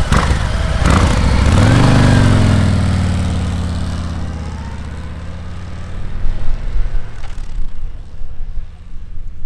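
Harley-Davidson Road King Special's 114 cubic inch Milwaukee-Eight V-twin pulls away, revving up to its loudest about two seconds in, then fades as the bike rides off down the lane. Near the end, low gusts of wind buffet the microphone.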